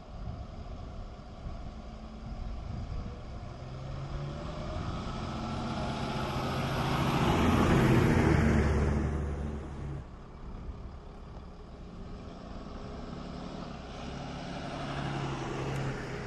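A fire engine drives past close by. Its diesel engine grows louder to a peak about eight seconds in and then fades off. A second fire vehicle's engine comes up near the end.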